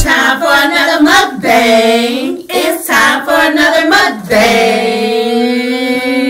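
A voice singing with no accompaniment: a few short sung phrases, then one long held note from about four seconds in.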